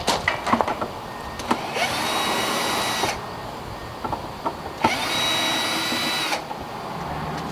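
Cordless drill/driver running in two short bursts, each spinning up and holding a steady whine, with clicks and knocks of handling in between, typical of backing screws out of an RV door lock.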